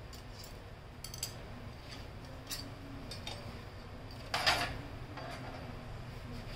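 Light clicks and clinks of a screwdriver against the plastic and sheet-metal frame of a partly disassembled HP LaserJet Pro M26 printer, with a louder half-second clatter about four and a half seconds in.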